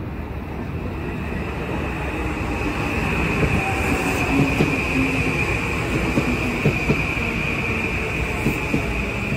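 Metro-North M8 electric commuter train rolling past along the platform, growing louder as it comes in. A steady high-pitched wheel squeal runs over the rumble of the cars, and the wheels clack over rail joints in the middle.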